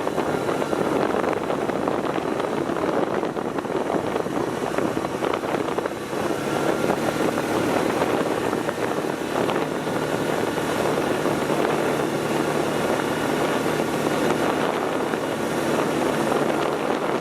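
A motor vehicle's engine running steadily, with a dense rushing noise over it.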